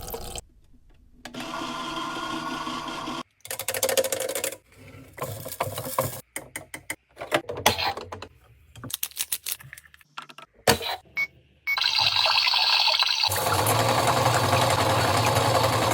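Washing machine sounds in short spliced clips: a steady running hum, then bursts of clicking and rattling, and from about twelve seconds in a long steady whir with water noise.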